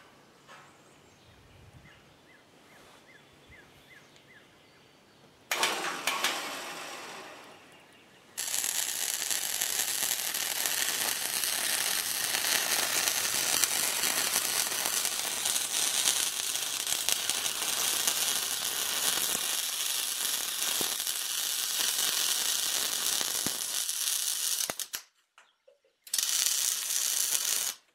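Wire-feed (MIG) welding arc crackling as a steel caster mounting plate is welded to the table frame: a short tack about five seconds in, then a long steady bead lasting about sixteen seconds, and another short weld near the end.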